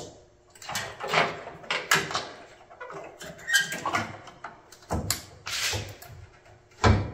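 A 5x7 LED headlight and its metal retaining ring being pushed and worked into a Jeep Wrangler YJ's headlight opening by hand. It makes a run of irregular scrapes, clicks and light knocks, with a brief squeak about halfway and a louder knock near the end.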